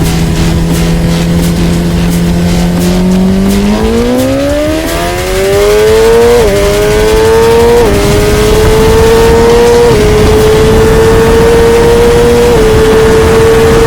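Suzuki GSX-R1000R inline-four engine accelerating hard. After a few seconds of steady running the pitch climbs steeply, then dips four times at quick upshifts, rising more slowly in each higher gear.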